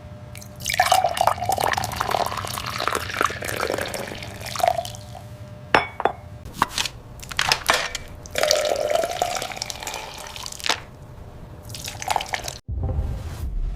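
Liquid pouring and dripping into glass, in several separate pours with a wavering pitch, broken by a few sharp clinks of glass.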